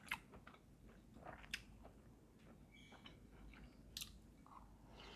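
Faint mouth sounds of a person chewing food close to the microphone: soft smacks with a few sharp clicks.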